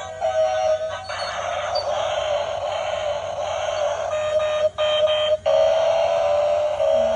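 Simple electronic beeping tune of thin, buzzer-like tones, with a stretch of whirring noise under it about a second in.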